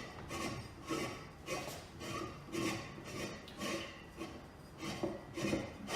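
Threaded metal center pole being screwed by hand into the base of a gumball machine stand, a string of short metal-on-metal scrapes and rubs, roughly one with each turn.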